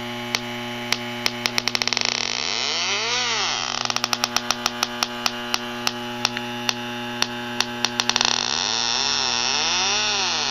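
Electronic refrigerant leak detector ticking: its clicks speed up into a rapid chatter and slow again, the sign that it is picking up refrigerant leaking from the evaporator coil. Twice a tone rises and falls, over a steady hum.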